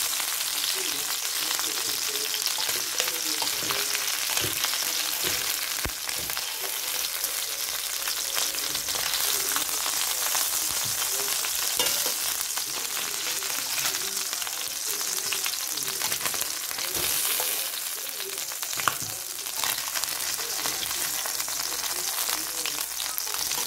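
Chicken drumsticks frying in hot fat in a steel frying pan, a steady sizzle, with scattered clicks and scrapes of metal tongs against the pan as the pieces are turned and lifted out.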